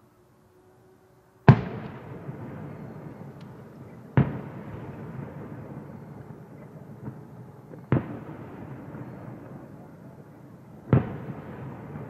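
Aerial firework shells bursting: four loud booms, the first about a second and a half in and the rest about three seconds apart. Each boom trails off in a long rolling echo.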